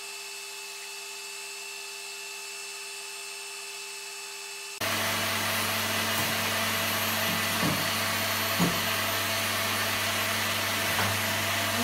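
A steady electric hum, then about five seconds in a hand-held stick blender starts suddenly and runs steadily and loudly, whipping egg whites in a tall beaker.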